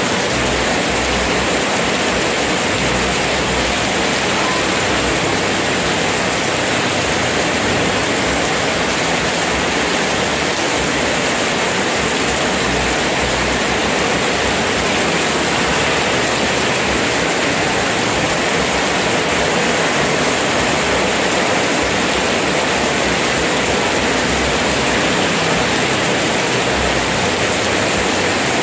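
Heavy tropical downpour on a paved street: a steady hiss of rain pouring down and splashing on wet, puddled pavement.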